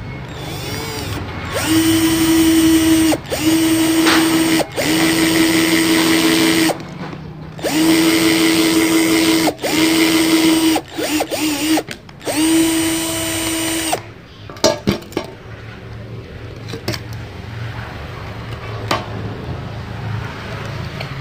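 Makita HP331D cordless drill boring holes into a thin plastic spray bottle. It runs in about half a dozen short bursts of a steady motor whine with brief pauses, then stops about two-thirds of the way in, followed by a few clicks and handling noise.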